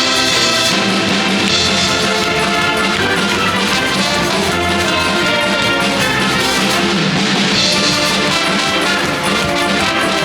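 School wind band playing an arrangement of Disney tunes in a Eurobeat style, brass to the fore over a steady drum-kit beat.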